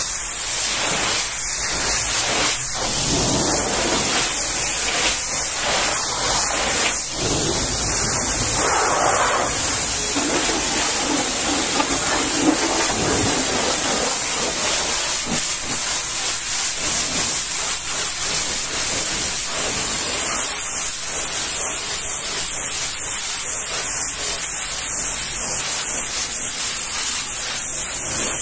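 Pressure washer's high-pressure water jet spraying a truck's tarpaulin side, chassis and tyre: a steady, loud hiss with the splatter of water on the surfaces.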